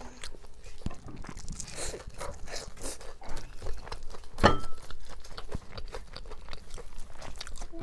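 Crunchy biting and chewing of deep-fried, breadcrumb-coated food: a steady run of crisp crackles, with a sharper crunch about four and a half seconds in.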